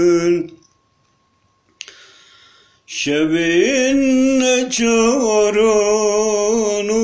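A man singing unaccompanied in long held notes with a wavering, ornamented pitch. He breaks off about half a second in, there is a brief hiss, and he comes back in about 3 seconds in on a new long note.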